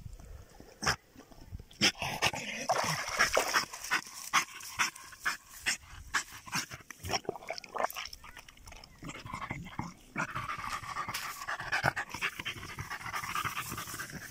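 German Jagdterrier panting with quick, repeated breaths, a dog cooling itself in strong heat.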